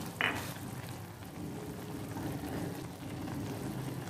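Chicken stew simmering in an aluminium wok, bubbling steadily. About a quarter second in, a metal spoon gives one short knock or scrape against the pan.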